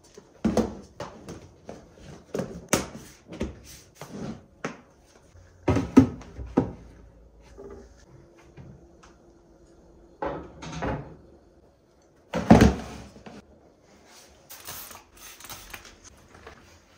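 Plastic food-storage containers handled: knocked and slid onto a cabinet shelf and nested into one another, a series of irregular clacks and knocks, the loudest about half a second, six, ten and a half and twelve and a half seconds in.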